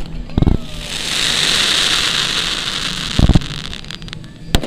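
Three sharp bangs of pyrotechnic charges set off as simulated bombs in a staged air raid: one about half a second in, one a little past three seconds and one near the end. Between the first two, a rushing hiss swells and fades for about three seconds.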